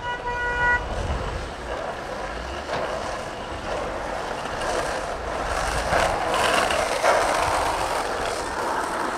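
A car horn sounds once, briefly, then the rushing noise of street traffic.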